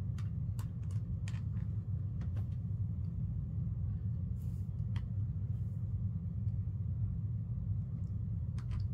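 Steady low rumble of background noise, with scattered light clicks and taps from hands handling the plastic dolls and their towel.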